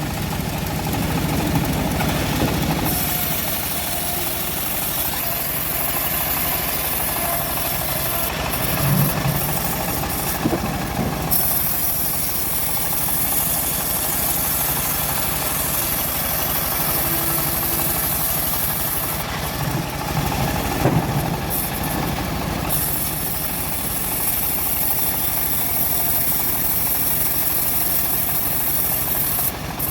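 Homemade bandsaw mill running steadily while its blade saws lengthwise through a teak log, with a high hiss that fades and comes back several times.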